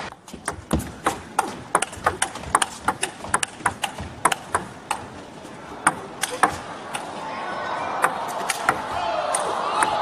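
Table tennis rally: the ball clicks sharply off the rackets and the table in quick alternation, about two to three clicks a second. The clicks thin out about seven seconds in as the crowd noise in the hall rises.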